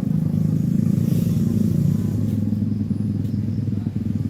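A steady engine drone, low and even, without letting up.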